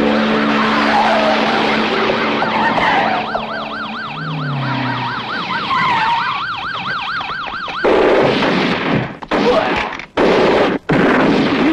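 Police car sirens wailing as police cars drive in, with a fast warbling siren cycling about four times a second from about three seconds in. From about eight seconds in, loud noisy bursts start and stop abruptly several times.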